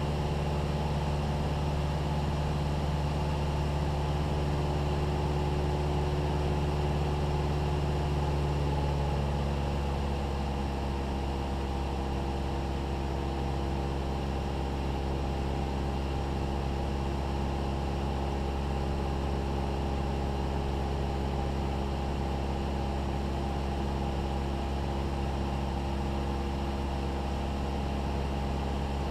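Cessna 172's piston engine and propeller in flight, a steady drone inside the cabin. About ten seconds in the engine note changes and gets a little quieter.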